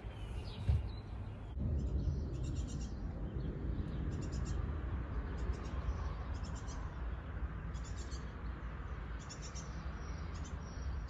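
Small birds chirping: short clusters of high notes repeated every second or so, over a steady low background rumble.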